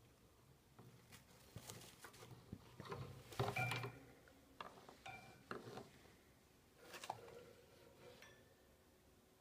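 Faint scattered rustling, scratching and clicking as a small caged pet moves through wood-shaving bedding and a stick pokes at the wire cage, busiest about three to four seconds in, with a couple of short high ringing notes.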